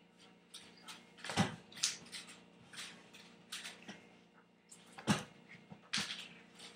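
A toy lightsaber swung about, making a string of short swishes and knocks, the loudest about a second and a half in and again about five seconds in, over a low steady hum.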